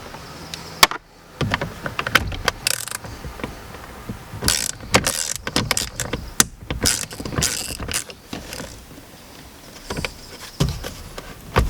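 Hand tools working the 8mm bolts on the back of a steering wheel: irregular metallic clicks and clinks, with a few short rasping bursts a few seconds in.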